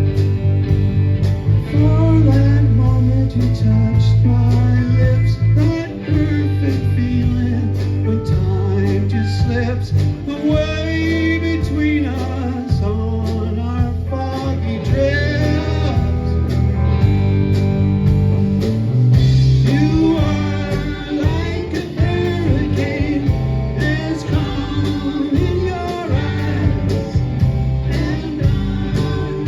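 A band playing a song, with guitar, a steady bass line and a singing melody over it.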